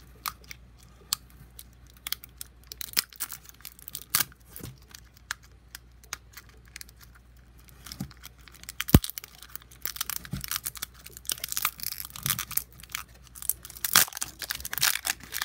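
Clear plastic wrap being picked at and peeled off a hard plastic ball-shaped toy by hand: crinkling and tearing with scattered clicks, and one sharp click about nine seconds in. The crinkling gets busier toward the end.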